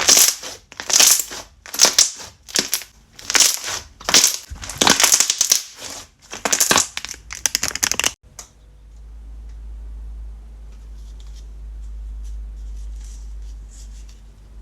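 Slime being squeezed and pressed by hand, a crunchy, crackling squish about once a second that stops about eight seconds in. After it only a low rumble with faint crackles remains.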